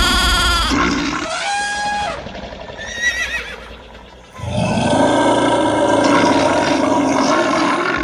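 A run of added animal-call sound effects: several short pitched cries one after another in the first few seconds, then a long, loud, dense call from about halfway through to the end.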